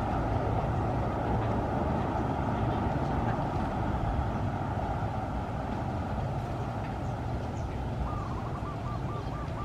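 Diesel locomotive engine running with a steady low rumble, with a brief wavering tone near the end.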